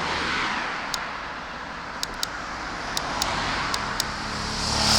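Road traffic: cars passing, swelling just after the start and again at the end. A few sharp light ticks come in between.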